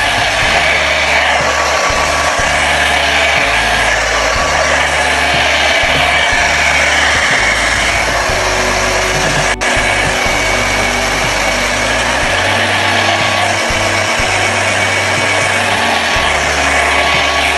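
Hair dryer blowing steadily, with background music underneath.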